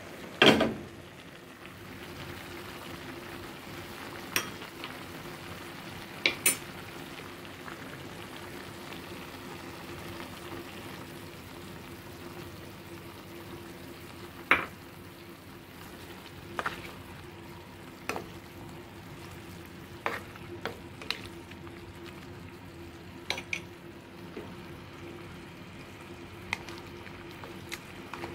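Chicken and mushrooms sizzling in an uncovered clay pot over a steady low hum, with scattered sharp clinks and knocks of utensils against the pot. The loudest knock comes about half a second in.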